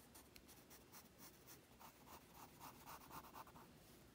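Faint pencil sketching on paper: a quick run of short strokes, a few a second.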